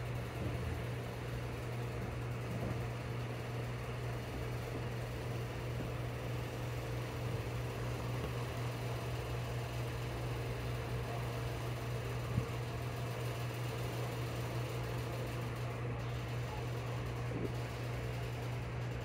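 A steady low mechanical hum with no change, and a single sharp click about twelve seconds in.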